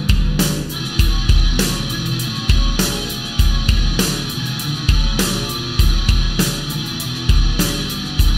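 Instrumental rock music: electric guitar over a drum kit, with heavy kick-drum hits about once a second and cymbal crashes.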